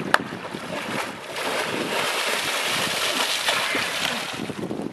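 Water splashing and sloshing as people wade out of shallow lake water, a steady rushing splash for a few seconds, after a couple of sharp clicks at the start.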